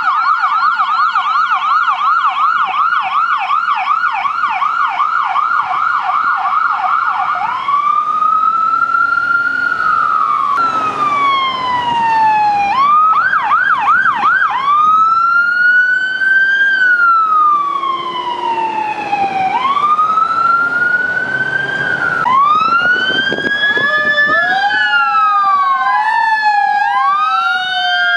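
Emergency vehicle electronic siren in a fast yelp, switching about seven seconds in to a slow rising and falling wail, with a brief burst of fast yelp in the middle. Near the end a second siren's wail overlaps the first, out of step with it.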